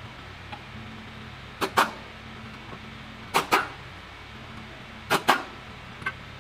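A dog barking in quick double barks, three pairs about a second and a half apart.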